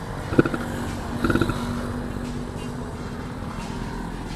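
Riding noise from a Yamaha F1ZR's two-stroke engine, with wind on the microphone. Two short louder sounds stand out, about half a second and about a second and a half in.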